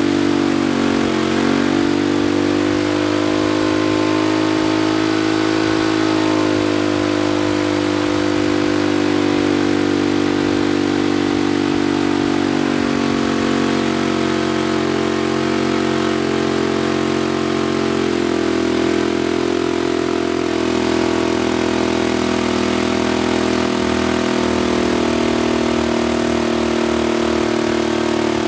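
Turbocharged Predator 212 single-cylinder engine running under load on a water brake dyno during a part-throttle pull. Its speed wavers up and down, then holds steadier in the second half. The mixture is still lean, and the engine is hunting at the higher revs.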